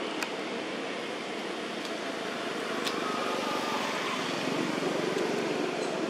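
Steady outdoor background noise with two faint sharp clicks, one just after the start and one about three seconds in.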